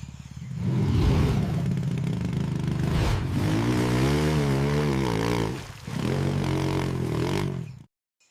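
Motorcycle engine revving, its pitch rising and falling, with a short dip a little before six seconds in. It cuts off abruptly near the end.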